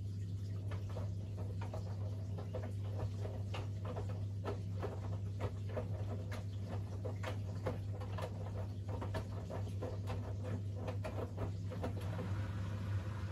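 Siemens iQ700 WG56B2090 front-loading washing machine washing, with a steady low hum under an irregular patter of soft knocks and splashes from the wet laundry tumbling in the drum. The patter stops near the end.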